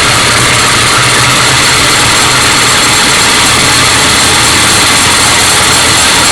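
1966 Ford Mustang's 289 V8 running, with a loud, steady noise from the belt-driven alternator, which the owner traced to the alternator squeaking under load rather than a slipping fan belt.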